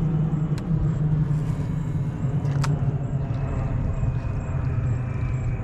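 A steady low engine-like hum, with two short sharp clicks, the first about half a second in and the second near the three-second mark.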